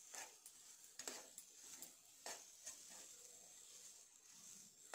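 Metal potato masher pressing boiled potatoes in a nonstick pan, faint, with several soft knocks against the pan in the first half, then mixing with a spatula.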